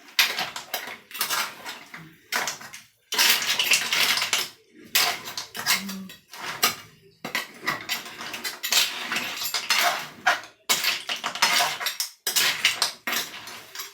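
Kitchen utensils clattering and scraping against cookware in a run of repeated strokes with short pauses between them, as food is mixed or handled.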